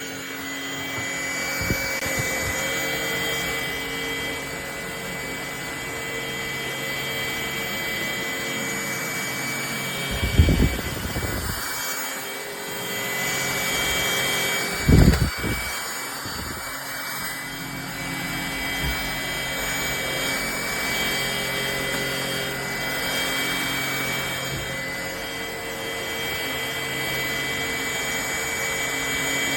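Cordless stick vacuum cleaner running steadily with a high motor whine and airflow noise, with two loud knocks about ten and fifteen seconds in.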